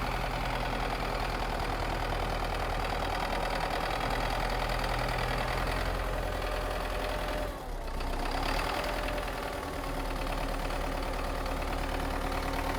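MTZ-82 Belarus tractor engine running steadily during a cold start, not yet fully caught, with a brief dip in sound about two thirds of the way through, after which the note changes slightly.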